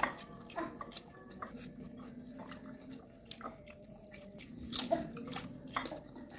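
Close-up chewing and mouth sounds of someone eating rice and a fried vegetable fritter by hand, with scattered short clicks and a louder cluster of them about five seconds in.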